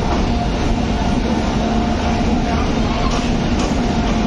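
Indian Railways WAP-7 electric locomotive drawing a passenger train slowly into a station platform: a steady rumble with a steady hum.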